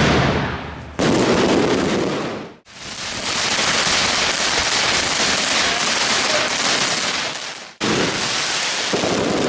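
Fireworks crackling densely, with many small sharp pops, in several clips spliced together. The sound changes abruptly about a second in, cuts off briefly near three seconds, and cuts off again near eight seconds.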